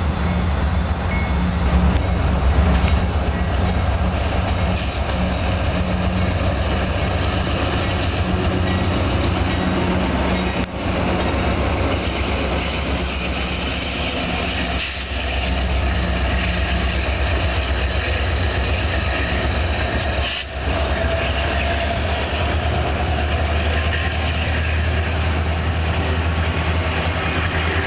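Norfolk Southern GE C40-9W and EMD SD70M diesel locomotives running past close by with a steady low engine drone, followed by an intermodal train's cars rolling by with wheel clatter on the rails. The sound drops out briefly twice.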